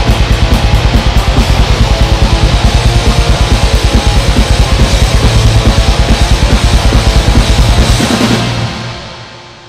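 Black metal music: distorted guitars over fast, evenly pulsing drums. About eight seconds in the drums stop and the track's last chord fades away.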